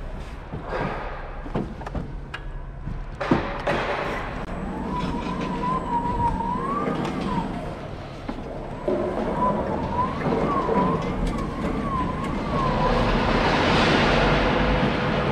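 Electric pallet truck: a few sharp knocks as it pulls clear of the pallet, then its drive motor whining, the pitch wavering up and down as it moves, with the rumble of its wheels on the concrete floor growing louder near the end.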